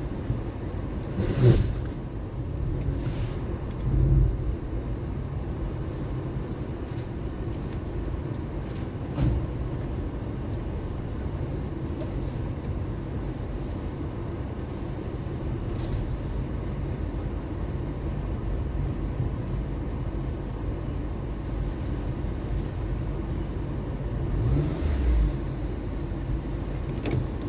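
A car driving on city streets: a steady low rumble of engine and road noise, with a few brief louder bumps about a second and a half in, around four and nine seconds, and again near the end.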